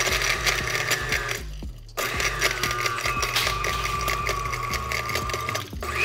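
Countertop blender running, its motor whining as it blends a liquid cocktail mix of vodka, lime juice, cranberry juice and triple sec. The motor stops for about half a second around one and a half seconds in, then starts again, and dips briefly near the end.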